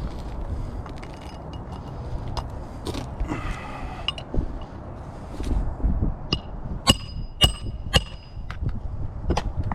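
Metal roofing tools and nails clinking, tapping and scraping against asphalt shingles during a shingle repair, with three sharp ringing metallic strikes about seven to eight seconds in, over a low rumble.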